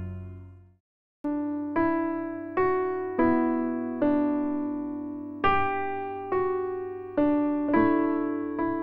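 Background music: an electric piano playing a slow melody of single notes, each ringing and fading, starting after a brief break about a second in.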